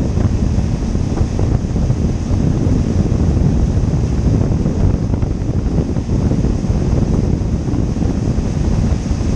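Steady wind rumble on the microphone of a camera riding on a moving boat, over the rush of the churning wake behind it.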